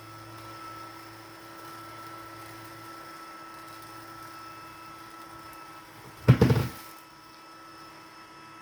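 Litter-Robot 3 self-cleaning litter box running its return cycle with a steady motor hum, then a loud bang of several quick knocks lasting under a second about six seconds in: the banging noise of its return cycle. The hum mostly stops after the bang.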